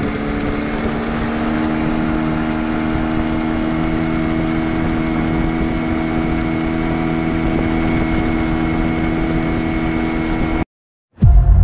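Boat engine running steadily at an even pitch, cut off abruptly near the end. It is followed by a short falling whoosh into music with a deep boom.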